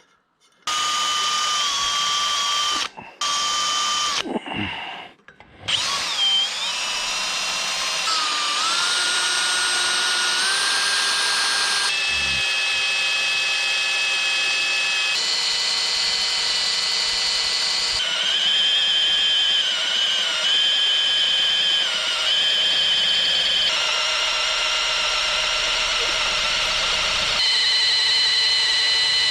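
Electric power drill running with a high motor whine. It starts and stops twice in the first few seconds, then runs continuously, its pitch jumping up and down in abrupt steps.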